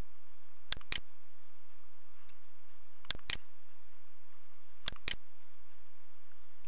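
Computer mouse button clicking: three quick double clicks a couple of seconds apart, over a steady low hum.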